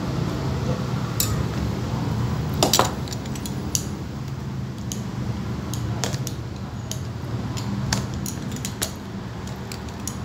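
Knife blade scraping and clicking as it is worked between a boot's glued sole and its leather upper to pry them apart. The clicks are scattered and irregular, with a louder clatter about three seconds in, over a steady low hum.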